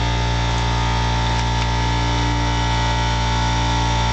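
Steady machine drone: a constant low hum with a steady higher tone above it, unchanging throughout, with a couple of faint metallic ticks about a second and a half in.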